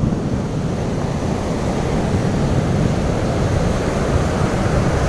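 Ocean surf breaking and washing up the beach in a steady rush, with wind blowing across the microphone.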